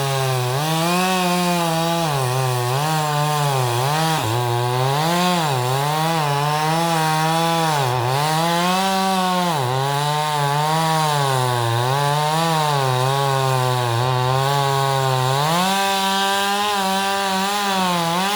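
Gas chainsaw running at high throttle and cutting through a boxelder trunk, its engine pitch sagging and recovering over and over as the chain bites into the wood under load.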